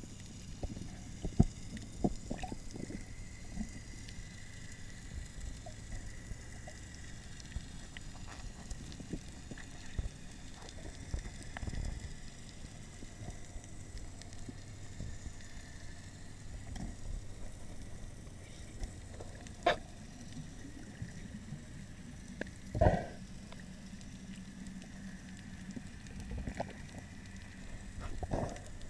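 Muffled underwater sound picked up by a camera in a waterproof housing: a low steady hum with scattered clicks and knocks, and a few louder knocks.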